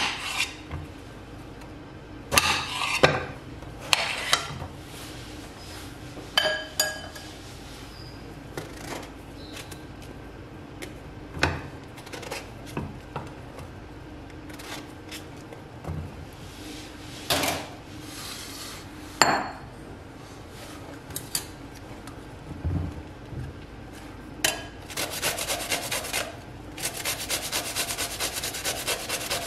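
Knife cutting a peeled bottle gourd on a plate: scattered knocks and short scrapes at irregular intervals. About 25 seconds in, a fast, even rasping begins as the gourd is rubbed over a metal hand grater into a glass bowl.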